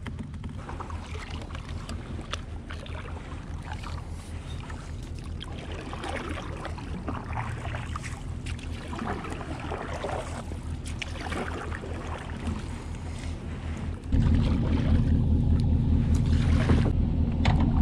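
Fishing kayak under way on the water: water washing along the hull over a steady, evenly pulsing low rumble, which becomes much louder about fourteen seconds in.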